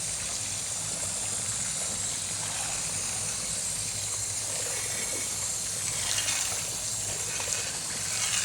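Water rushing steadily through a water-treatment clarifier/filter tank, a constant hissing rush over a low steady machinery hum.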